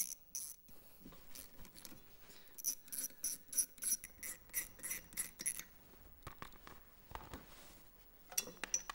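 Hand ratchet and socket clicking at an engine's flywheel nut: a run of about ten light metallic clicks, roughly three a second, a few seconds in, with a few scattered clinks of metal tools and parts near the start and near the end.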